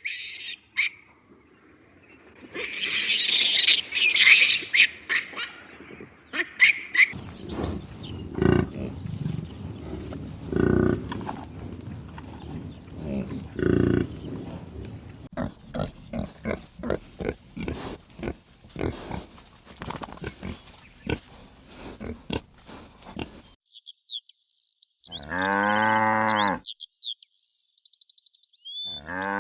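Farm animal calls and noises in a few separate clips, with birds chirping and a long pitched animal call near the end.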